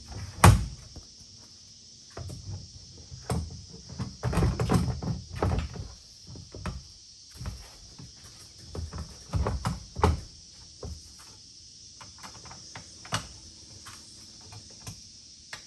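Plastic MaxTrax recovery boards and their mounting brackets knocking and clunking against the roof rack platform as they are positioned and fastened. There is a sharp knock about half a second in, runs of clunks around four to six seconds and around ten seconds, and a steady high hiss underneath.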